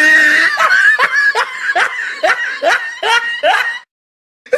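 A person laughing loudly in a rapid string of high 'ha' pulses, about four a second, each dropping in pitch, stopping shortly before the end.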